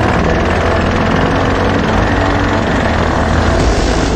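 Supermoto motorcycle engines running under way, a steady loud engine rumble with road and wind noise.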